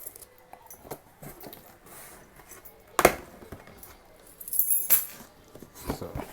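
Cardboard shipping box being cut and torn open with a set of keys: a few sharp rips and scrapes of packing tape and cardboard, the loudest about three seconds in and a longer one near five seconds, with light key clinks.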